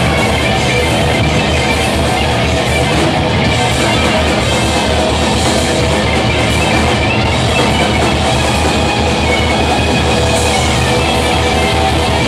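Live rock band playing loud: electric guitars and bass over a drum kit keeping a fast, steady beat.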